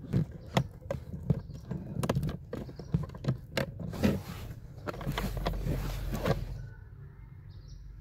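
Irregular plastic clicks, knocks and rustling of hands unlatching and pulling locking wiring connectors off a car's body control module. The handling stops about seven seconds in.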